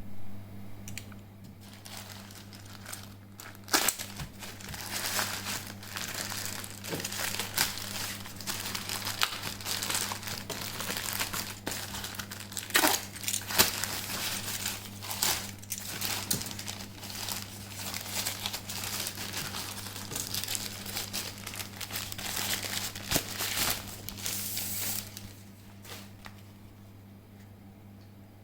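Plastic packaging crinkling and rustling as it is handled and opened, with scattered sharp crackles; the handling dies down about 25 seconds in. A steady low hum runs underneath.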